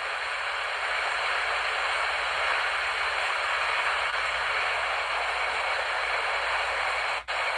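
Heavy rain falling, a steady even hiss, with a brief gap in the sound near the end.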